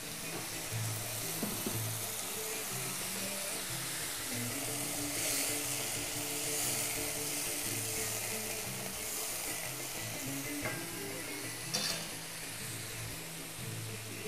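Onions sizzling in a heavy black pot on a gas burner after a splash of water, stirred now and then with a wooden spoon; a brief knock near the end. Soft background music underneath.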